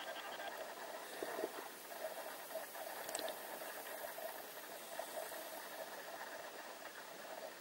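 Underwater ambience picked up by a submerged camera: a steady, muffled hiss with a few faint clicks scattered through it.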